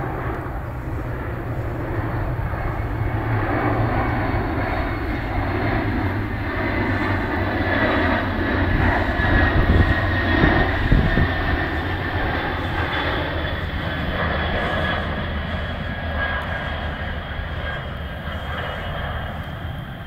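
Jet engines of the Boeing 747 Shuttle Carrier Aircraft, with the space shuttle mounted on its back, passing overhead at low altitude. The noise builds to a peak about halfway through and then falls away, with a steady high whine over it in the second half.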